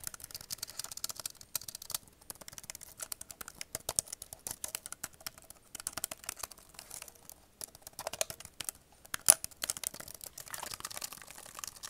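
Fingers tapping fast and hard on a laptop keyboard: a dense, irregular run of key clicks, with one sharper, louder knock about nine seconds in.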